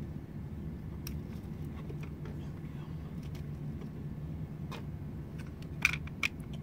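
Light clicks and knocks of hands and a wrench working at a car battery's terminals and cables, a few scattered at first and a louder cluster about six seconds in, over a steady low hum.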